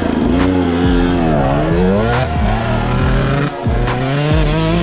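Husqvarna TC125 two-stroke dirt bike engine revving hard as the bike pulls away. Its pitch dips and climbs again about a second and a half in.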